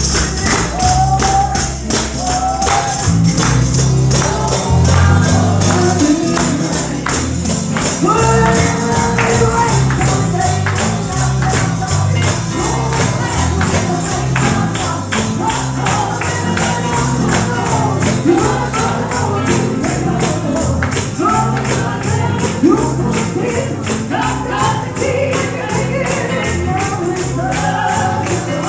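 Live gospel music: a tambourine shaken on a steady, driving beat over a bass line, with a singer's melody above.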